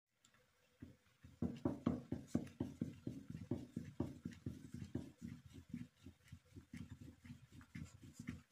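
Wooden rolling pin rolled quickly back and forth over a round of bread dough, a fast run of soft knocks about four or five a second, starting about a second in.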